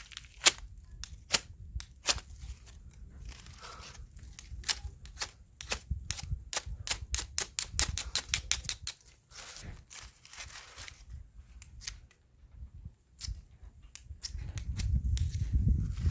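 A flint fire starter struck over and over: a long irregular series of sharp scraping clicks, some in quick runs, with a short pause near the end. The sparks fail to catch the rolled newspaper. A low rumble of handling comes in during the last couple of seconds.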